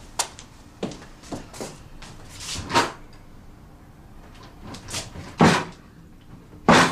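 Footsteps, then a kitchen drawer being yanked and banged: a string of short knocks and thuds, the loudest two about five and a half seconds in and near the end. The drawer is jamming on a fish slice caught the wrong way round inside it.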